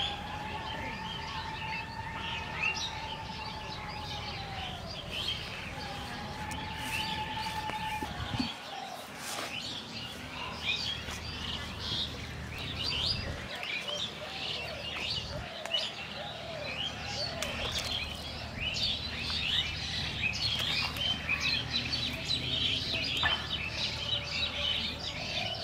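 Many small birds chirping and twittering. A long held tone sounds twice in the first eight seconds, trailing downward the first time.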